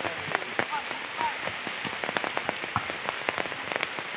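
Steady heavy rain falling, with many sharp, irregular drop hits close by over an even hiss.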